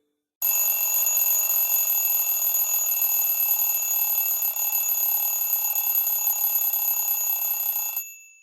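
Cubot X6 smartphone's preinstalled tone of a ringing telephone bell: one continuous bell ring that starts abruptly about half a second in and stops abruptly near the end.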